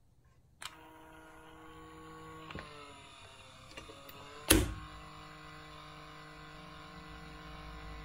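Whirlpool dishwasher's automatic door opener at work: a click about half a second in, then a steady hum with several tones as the mechanism runs. There is a smaller click about two and a half seconds in and a loud thunk about four and a half seconds in as the door is pushed ajar. The hum continues afterwards.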